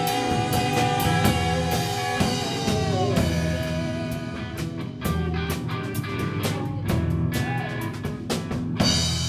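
Live rock band playing: electric guitar holding long notes over a drum kit, with a note bending down about three seconds in and a cymbal crash near the end.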